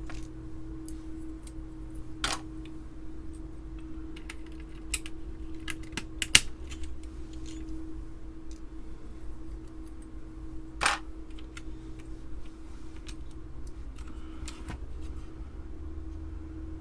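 Scattered plastic clicks and snaps as keycaps are worked loose and pried off an Amiga keyboard, with the loudest snap about six seconds in. A steady low hum runs underneath.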